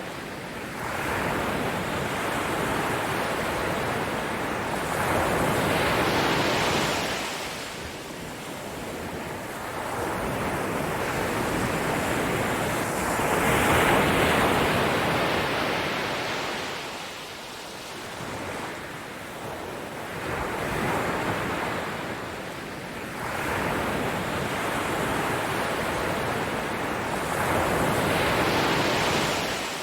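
Ocean waves washing in, the rush rising and falling in swells every few seconds, loudest about halfway through.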